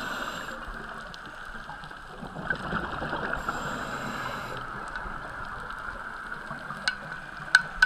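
Underwater sound of a scuba diver breathing through a regulator: a steady watery rush with two hissing breaths about a second long, one just at the start and one about three and a half seconds in, and bubbling between them. A few sharp clicks near the end.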